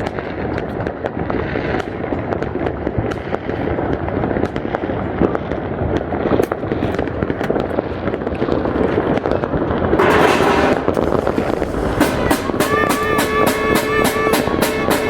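New Year's fireworks popping and crackling continuously over a loud background din. About twelve seconds in, music with a fast steady beat, about four beats a second, starts up.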